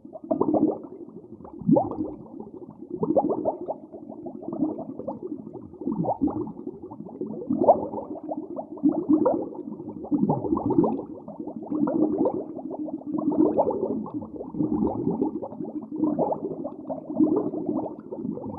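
Repeated low animal calls, about one a second, some falling in pitch.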